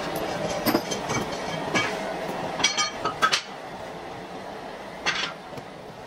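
A series of sharp clinks and knocks over a steady background noise, with a short rattling run about three seconds in and one last knock about five seconds in.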